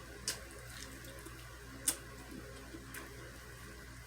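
Mouth sounds of someone eating: a few sharp clicks from chewing and smacking, the loudest about two seconds in, over a quiet low hum.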